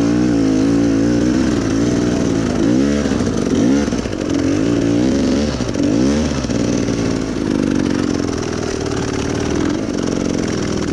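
Enduro dirt bike engine revving hard, its pitch rising and falling again and again as the throttle is opened and eased. The rider is fighting for traction on a slippery, rain-soaked climb, with the rear wheel spinning under throttle.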